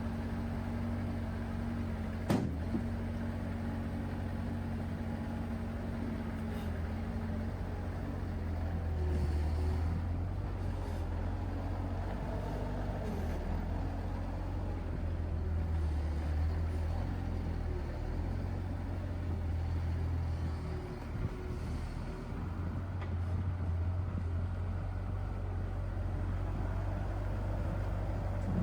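Bobcat 763 skid steer's 46-horsepower diesel engine running steadily, swelling louder now and then. A single sharp click about two seconds in.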